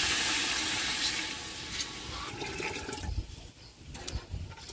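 Coconut milk poured from a cup into a pot of hot oil and fried spices, hissing loudly as it hits and fading over about two seconds into a softer bubbling, with a few low thuds near the end.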